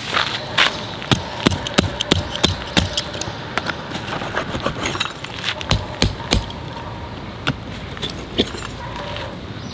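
Irregular sharp knocks and clicks, two or three a second at first and thinning out after about halfway, over a steady hiss of rain.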